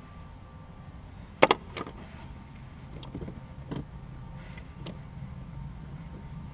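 Sharp metallic clicks of a hand wire crimper/stripper tool and wires being handled, the loudest a quick pair about a second and a half in, with a few lighter clicks after, over a steady low rumble.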